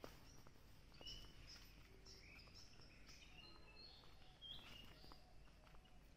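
Faint birds chirping: a scatter of short, high chirps and whistled notes over quiet outdoor background.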